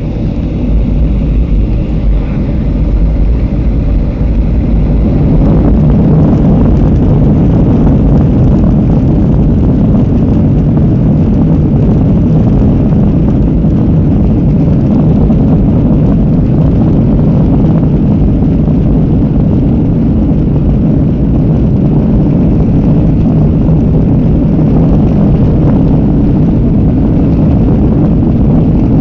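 Airliner engines rising in loudness over about the first six seconds as thrust builds for takeoff, then a loud, steady, low rumble.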